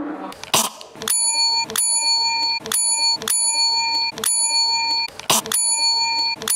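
Chrome desk (service) bell struck over and over: bright metallic dings about one and a half times a second, starting about a second in, each cut off short. A couple of sharp knocks come before the first ding.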